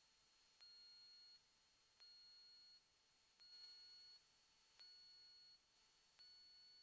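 Faint, high-pitched electronic beep, each tone lasting about three-quarters of a second and repeating evenly about every 1.4 seconds, five times.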